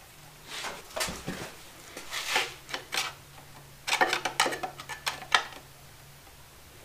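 Metal tools clinking and knocking against metal engine parts in three short clusters of sharp clicks, with a faint steady hum underneath.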